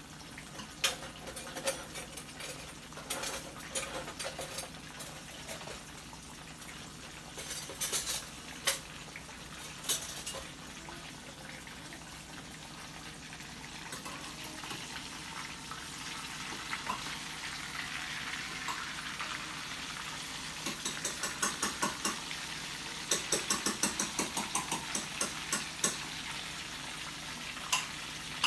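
Breaded chicken breast frying in hot oil in a skillet: a steady sizzle that grows a little louder about halfway through, with sharp crackles and pops scattered through it and coming in quick runs near the end.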